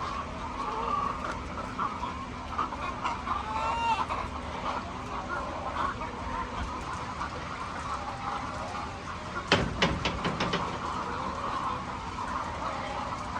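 A flock of chickens clucking and calling together, many short overlapping calls. About two-thirds of the way through there is a quick run of five or six sharp knocks.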